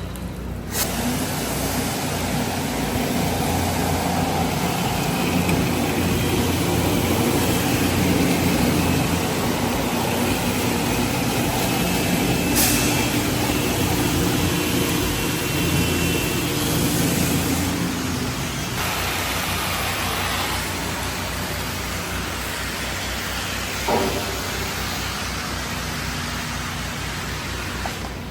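Pressure washer running, a steady loud hiss of water spray over an engine's low hum, starting abruptly just under a second in. A couple of brief knocks are heard, one about midway and one near the end.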